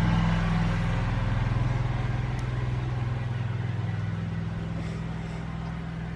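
A vehicle engine running steadily with a low, even hum that slowly fades over the last few seconds.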